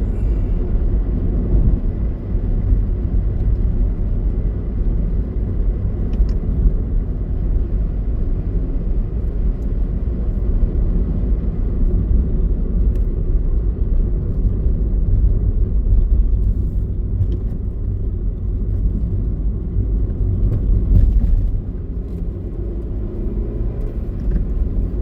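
Car driving along, a steady low rumble of road and engine noise that eases slightly about three quarters of the way through.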